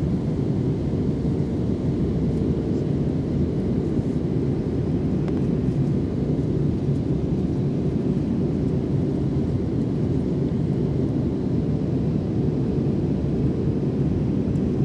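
Cabin noise of an Airbus A319 airliner in flight, heard from a window seat over the wing: a steady low rumble of jet engines and airflow, with a faint steady hum on top.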